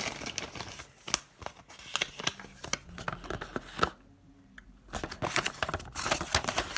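Paper instruction leaflet being handled and unfolded, crinkling and rustling in two spells with a short pause about four seconds in.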